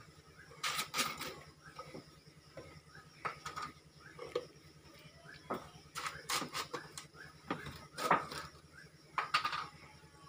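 Kitchenware being handled: irregular clinks and knocks of pots, pans and utensils, a few at a time, over a steady low hum.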